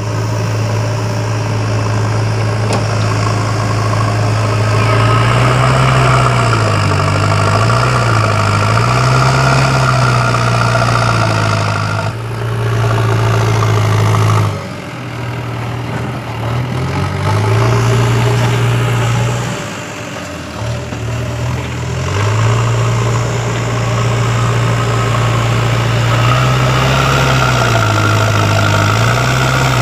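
Diesel engine of a JCB backhoe loader running under load, its pitch rising and falling again and again as the machine works. The sound drops briefly twice around the middle.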